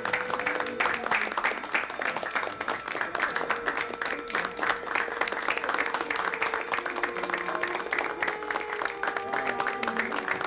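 A banquet audience applauding: dense, steady hand clapping from many people.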